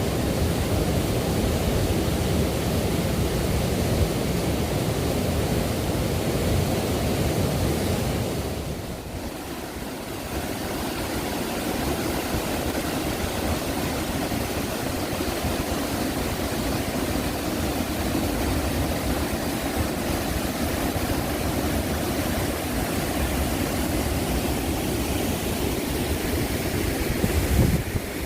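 Steady rush of a waterfall, a loud even roar of falling water. It drops briefly about nine seconds in.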